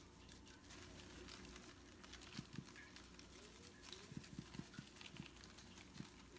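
Near silence with faint, quick taps of a handheld spice shaker being shaken over a tray of raw chicken quarters: a pair of taps, then a short run of several, then one more near the end.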